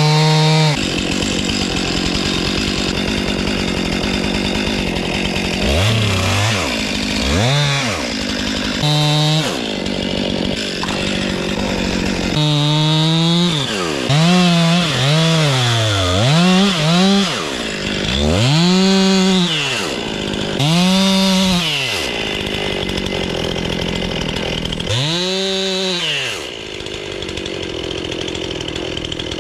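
Gas chainsaw cutting into an alder trunk to make the face cut, its engine pitch rising and falling over and over as the throttle is worked and the chain bites.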